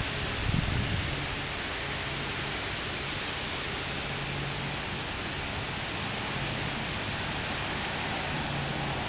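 Strong gusty wind rushing steadily, with a low buffeting surge on the microphone about half a second in.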